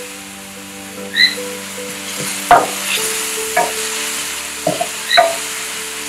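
Chopped onion, garlic and vegetables sizzling in olive oil in a stainless steel pan. They are stirred with a wooden spoon, which scrapes and knocks against the pan about four times in the second half.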